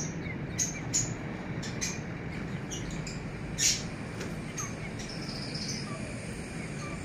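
Birds chirping faintly over a steady background noise, with a few sharp clicks, the loudest about three and a half seconds in.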